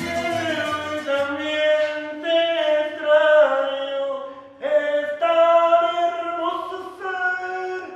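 A man singing unaccompanied in long held notes, a few phrases with a short break about four and a half seconds in.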